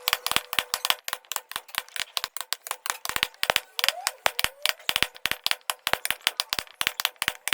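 Rapid, irregular wooden clicks and knocks, several a second, from woodworking hand tools striking and working wood. A faint steady hum runs underneath.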